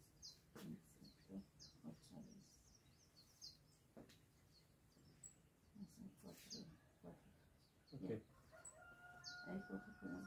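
Faint, repeated high chirps of small birds, with a rooster crowing once near the end. There is a soft thump about eight seconds in.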